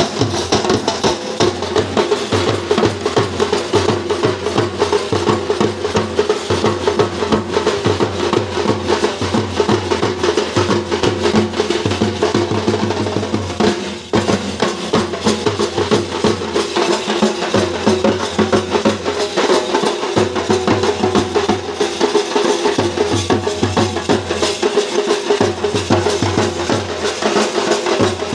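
A group of large barrel drums beaten with sticks, together with a snare drum, playing a fast, driving rhythm without pause, with a brief break in the sound about halfway through.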